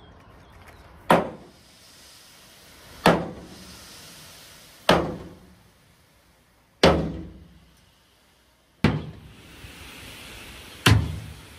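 Heavy blows on metal, struck evenly about every two seconds, six in all, each ringing out briefly.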